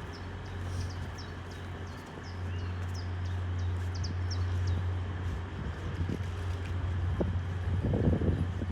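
A steady low engine hum, with small birds chirping over it again and again for the first few seconds. A few knocks come near the end.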